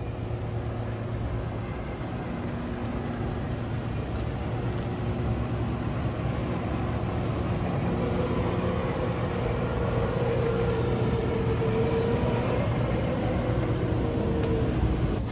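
A ride-on industrial floor sweeper running across a paved yard: a steady engine rumble, with a wavering whine that comes in about halfway and stops near the end, over a constant low machinery hum.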